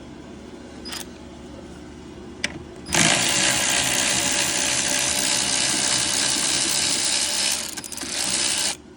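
A couple of faint clicks, then about three seconds in a power drill starts and runs steadily for nearly six seconds, dipping briefly near the end before it stops.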